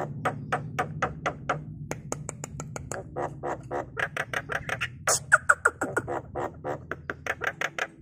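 Javan myna giving a fast run of short clicking, chattering notes, about four a second, with a brief whistled note about five seconds in, over a faint steady low hum.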